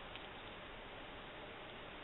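Steady hiss of recording noise, with two faint clicks right at the start.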